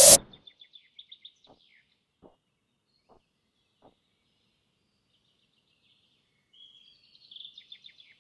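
A loud rising whoosh cuts off sharply at the very start. Then small birds chirp and trill in quick repeated notes, with a few faint ticks.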